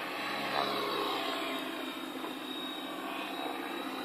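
Align T-Rex 550E electric RC helicopter in flight: a steady high whine from its motor and drivetrain over the whoosh of the rotor blades, the pitch gliding a little as it moves about the sky.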